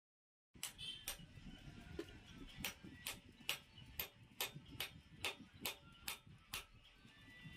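A regular series of sharp ticks, about two a second, starting after a brief dead silence and stopping shortly before the end, over a low background rumble.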